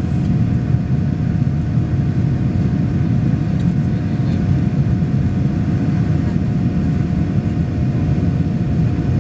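Steady roar of a Boeing 737-800's CFM56-7B turbofan engines and the airflow, heard inside the passenger cabin while the airliner is airborne after takeoff. A faint steady tone sits above the low rumble.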